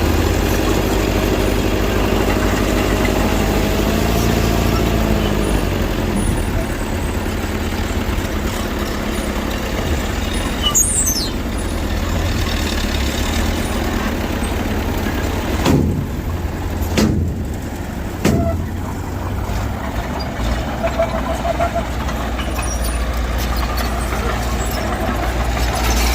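Diesel engines of a bulldozer and dump truck running steadily at a work site. About eleven seconds in there is a brief high squeal that falls in pitch. A few short, sharp sounds follow about five to seven seconds later.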